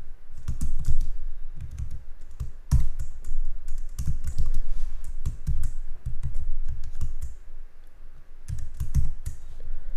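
Typing on a computer keyboard: irregular runs of keystrokes, each with a dull thud under the click, with a short lull about eight seconds in.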